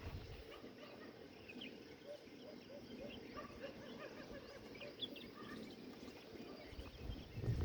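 Faint outdoor ambience with many short, scattered bird chirps.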